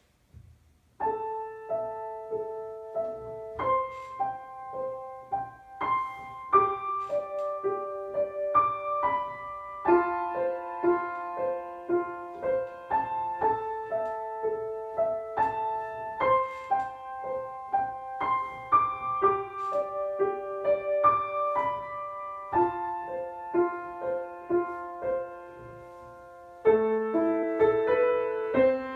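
Music: a melody of repeated, evenly spaced keyboard notes, starting about a second in.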